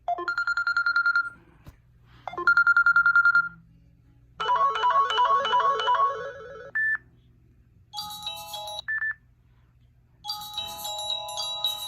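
Samsung Galaxy S4 mini phone playing a series of short ringtone samples one after another. First come two bursts of a fast-trilling electronic ring, then a chiming melody with a short beep, then more short chime tunes, each cut off after a second or two.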